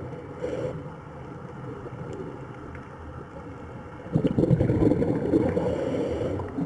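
Rushing, gurgling water of a waterfall, uneven and surging, growing clearly louder about four seconds in.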